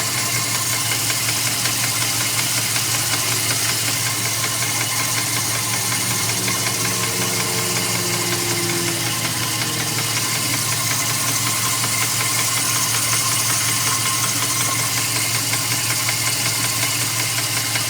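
2002 Dodge Ram's 4.7-litre V8 running steadily with a loud, fast, even ticking knock from the engine, which three mechanics take as a sign that the engine needs replacing.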